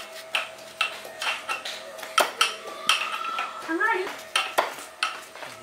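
Irregular sharp clicks and clinks of a kitchen knife and cut pieces against a steel plate as a tomato is sliced by hand over it.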